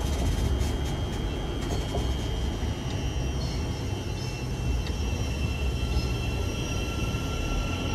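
A train running past: a steady low rumble with a high, thin whining tone held over it, and a second, lower whine coming in past the middle.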